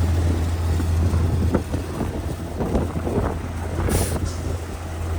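A large engine running steadily with a low hum, with scattered small knocks and a brief sharp hiss about four seconds in.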